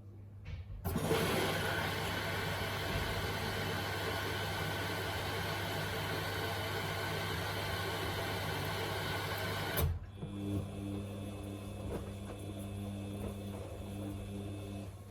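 Samsung washing machine in the saturation stage of its Baby 60°C cycle: a loud rushing of water flowing in starts suddenly about a second in and cuts off sharply near ten seconds, after which the drum motor runs with a quieter steady whine.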